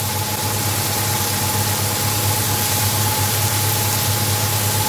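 Okra masala sizzling steadily in an aluminium karahi over a gas flame, under a constant low hum with a thin steady whine above it.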